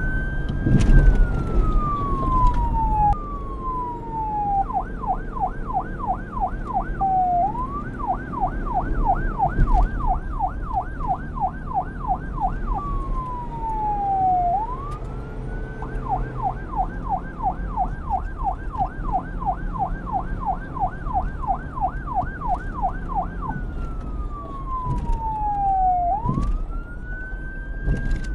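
Police car siren alternating between a slow wail, a tone that climbs and then falls over a few seconds, and a fast yelp of about four sweeps a second. A low steady rumble runs underneath.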